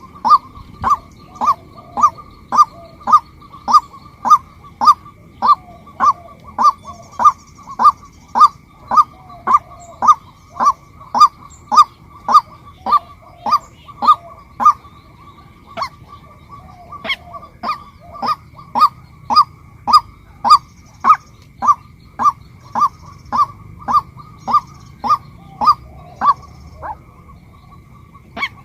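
Female white-breasted waterhen calling: a loud single note repeated over and over, about one and a half notes a second, with a brief softer, uneven stretch about halfway through.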